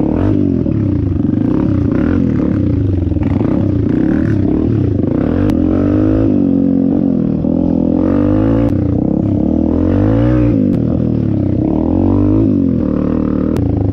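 Dirt bike engine heard up close from the bike as it is ridden, its pitch rising and falling repeatedly, about every one to two seconds, as the throttle is opened and closed.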